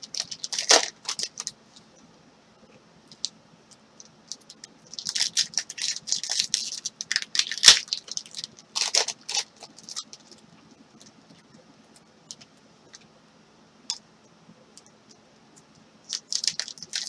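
Trading-card pack wrappers crinkling and tearing as they are opened by hand, in several short bursts with quiet gaps, and cards being handled. One sharp snap about eight seconds in.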